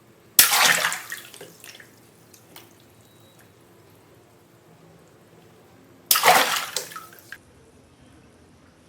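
Water balloons bursting twice, about six seconds apart: each a sudden pop followed by about a second of water splashing and pattering down.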